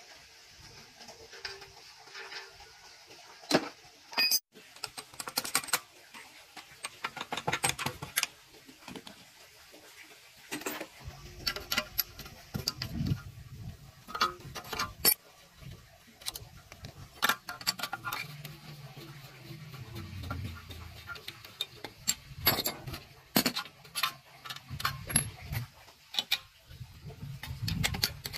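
Irregular metallic clicks, clinks and knocks of metal parts and hand tools being handled while taking apart an old air compressor, with low rumbling patches in the second half.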